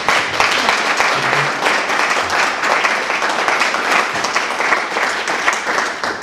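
A small audience applauding, a dense patter of hand claps that dies away near the end.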